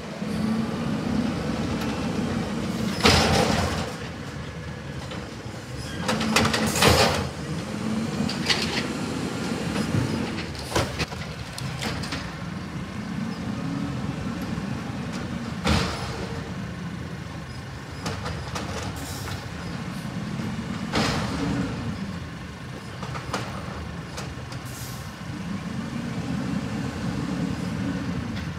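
Peterbilt 320 automated side-loader garbage truck's diesel engine revving up and settling back again and again as its arm lifts and empties recycling carts. Several sharp bangs and hisses come in between.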